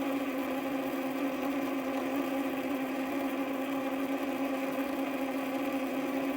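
Humidifier's small motor running with a steady, even hum.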